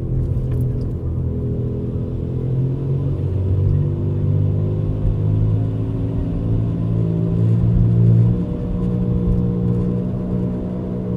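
2004 Buick Rendezvous making a loud, steady droning rumble while driving, with several low tones that drift slightly in pitch.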